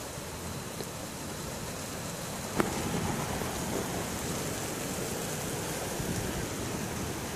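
Hailstorm: hail and rain falling in a steady hiss, with one sharp knock about two and a half seconds in, after which it is a little louder.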